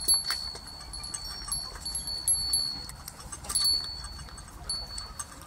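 Young rams chewing fallen pears, a run of crisp crunching clicks. A thin high-pitched tone comes and goes behind it.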